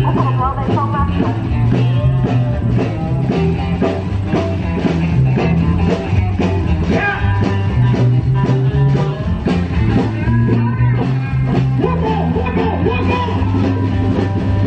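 A rock band playing, with a steady drum beat, a bass line and guitar.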